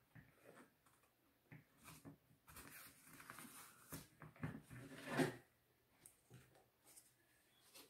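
Faint rubbing and rustling of a paper clock face being smoothed and pressed onto a plastic wall-clock dial by hand, with a louder handling knock about five seconds in as the dial is picked up.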